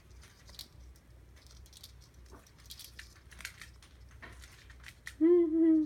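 Faint scattered rustles and light clicks of kittens moving about on blankets and climbing the wire bars of a playpen. About five seconds in comes a short, steady voiced hum, a person's voice, which is the loudest sound.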